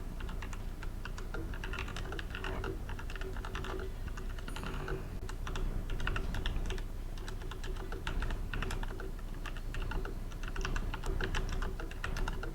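Fast, continuous typing on a Tecware Phantom mechanical keyboard: a dense, irregular run of key clicks during a timed typing test.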